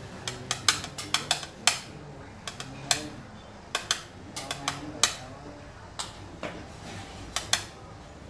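Plastic xiangqi pieces clacking together in a player's hand: sharp, irregular clicks, some in quick clusters of two or three.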